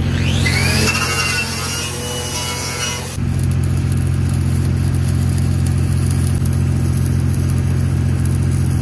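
Engine-driven rig welder running steadily, with a stick-welding arc crackling as filler rod is melted into a wide gap ("Texas TIG"). A sweeping whine rises and falls over it for the first three seconds, then cuts off.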